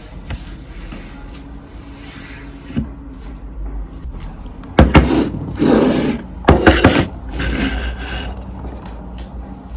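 Household handling sounds: a light knock, then two loud sharp knocks or clatters with rubbing and scraping in between and after, like wooden doors or cupboards being moved.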